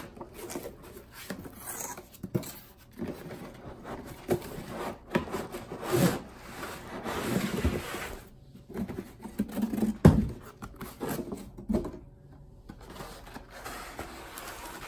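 Cardboard packaging being opened and unpacked by hand: flaps and sleeves rubbing and scraping, with scattered knocks and one loud thump about ten seconds in.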